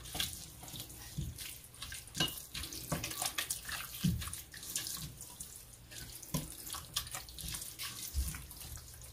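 Silicone spatula stirring and scraping a ground-beef and tomato-paste chili base in a stainless steel pot on a hot burner: irregular soft scrapes and knocks against the pot over a faint, steady sizzle.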